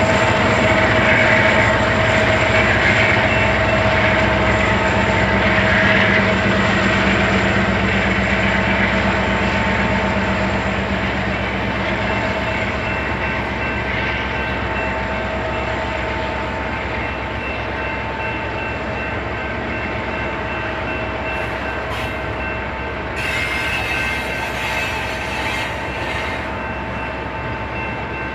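A very slow-moving intermodal freight train rolling past, a steady rumble with several steady whining tones over it that slowly grows quieter. About three-quarters of the way through, a brighter hissing noise joins for a few seconds.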